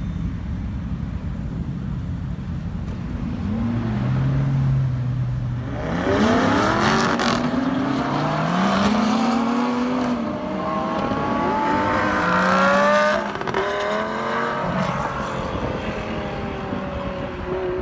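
Audi R8 engine revving hard as the car accelerates away, its pitch rising again and again through several gear changes. It is loudest just before it drops off sharply about two-thirds of the way through, then fades as the car moves off.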